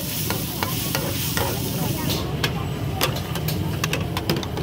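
Food sizzling in a hot pan, with sharp clicks and taps of utensils; the sizzle fades about two seconds in, leaving the clicks over a steady low hum.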